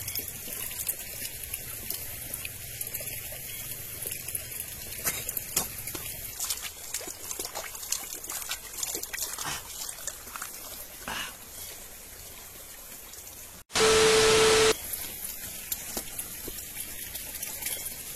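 Water trickling steadily, with a constant high insect-like hiss and scattered faint clicks. About 14 seconds in, a sudden loud burst of noise with a steady tone lasts about a second.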